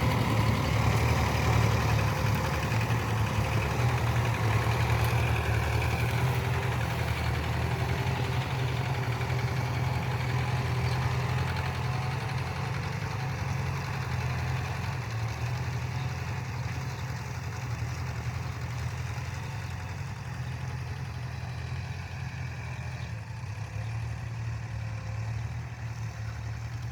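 Kubota tractor's diesel engine running steadily, slowly growing fainter.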